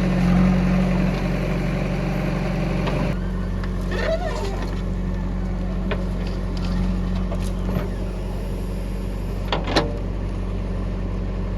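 Heavy diesel engine running steadily, with scattered knocks and one short, sharp clank near the end.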